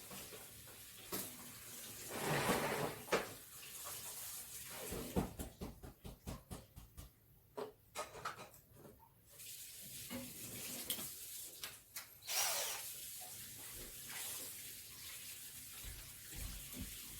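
Handling noises from work on a TV's insides: rubbing and rustling, with a quick run of small clicks in the middle.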